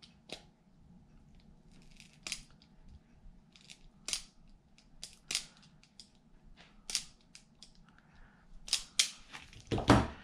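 Hand wire stripper-crimper tool squeezed shut on a copper wire lug, giving a series of sharp clicks about every one to two seconds, then a louder, heavier knock near the end.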